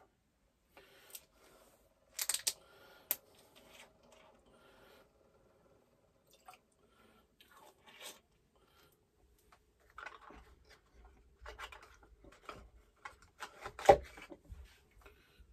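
A small whisky sample bottle being handled and opened: scattered clicks, scrapes and rustles, with a cluster of sharp clicks about two seconds in. A single sharp knock near the end is the loudest sound.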